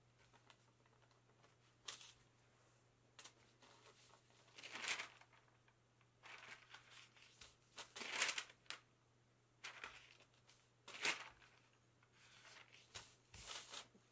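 A sheet of paper being lifted, slid and smoothed by hand over a cotton t-shirt, heard as soft papery swishes and rustles every second or two, over a faint steady hum.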